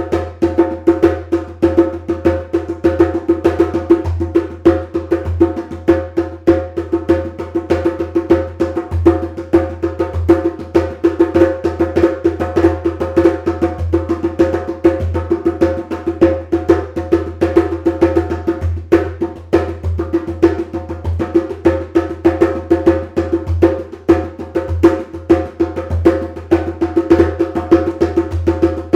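Medium-size djembe played by hand in a rapid, continuous rhythm, its deep bass notes mixed with sharper, higher strokes. The drum has a loud voice and good bass.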